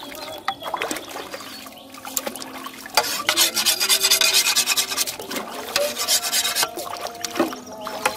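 Metal hoe blade scraping and chopping through mud in shallow water, a fast rasping run of strokes that is densest in the middle, with water splashing.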